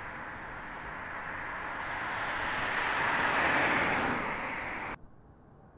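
A vehicle passing by, a smooth rush of road noise that swells to a peak about three to four seconds in and then cuts off suddenly about five seconds in.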